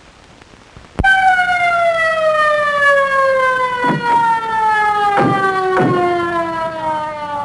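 Police car siren starting abruptly about a second in and then sliding slowly and steadily lower in pitch, winding down.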